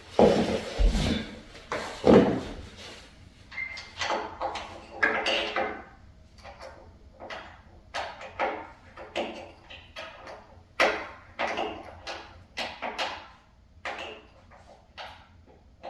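An Allen key working a bolt in a wooden bed frame: a string of short clicks and scrapes, about one or two a second, with two louder knocks in the first two seconds.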